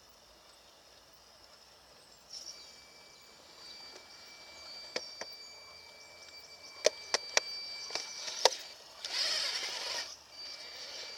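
Radio-controlled 6x6 crawler working across a log: a string of sharp clicks and knocks from its wheels and chassis on the wood, then a short burst of scrabbling near the end, over a faint steady high whine.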